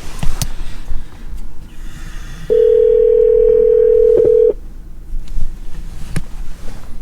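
Telephone ringback tone over a phone's speaker: one steady ring about two seconds long, starting two and a half seconds in, the sign that the called phone is ringing and not yet answered. A few sharp clicks come before and after it.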